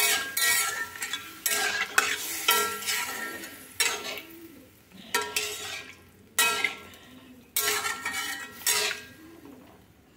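Spatula stirring egg curry in an aluminium kadai, scraping the pan with a stroke about every second. Each stroke brings a burst of sizzling from the water just added to the hot masala, and the sizzling dies down between strokes.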